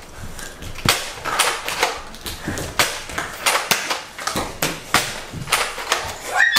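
Irregular sharp clicks and knocks, two or three a second: Nerf foam-dart blasters firing and darts striking in a play fight.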